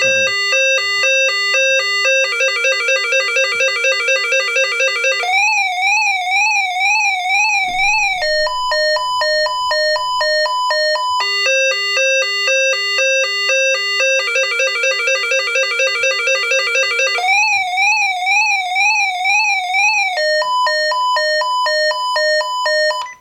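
Radio scanner's electronic weather-alert alarm sounding during a test. It cycles through rapid pulsed beeps, a warbling tone and alternating two-note beeps, and the sequence repeats about every twelve seconds before cutting off suddenly.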